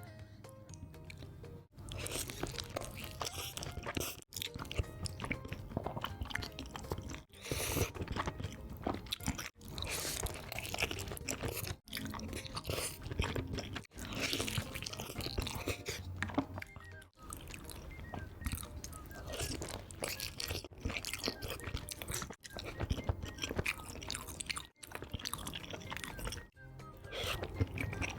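Close-miked crunchy bites and chewing of food, in short segments that break off briefly every two to three seconds, over background music.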